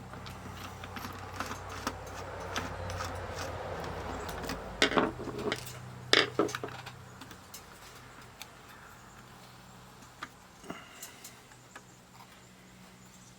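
Small plastic clicks, taps and rubbing as a handheld digital multimeter's case is handled and opened up, with two louder bursts of clatter about five and six seconds in.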